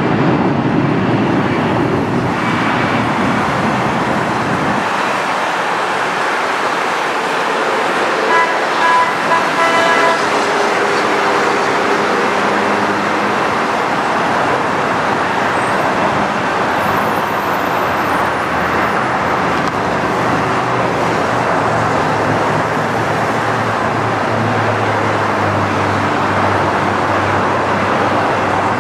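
Airbus A319 jet engines at takeoff thrust through the takeoff roll and climb-out: a loud, steady rushing noise, with a deeper rumble building near the end. A short horn sounds about eight seconds in.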